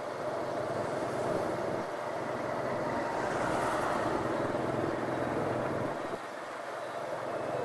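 Motor scooter running along a busy street, heard from the rider's seat: a steady mix of its engine and road noise with other traffic around, and a brief hiss about three seconds in.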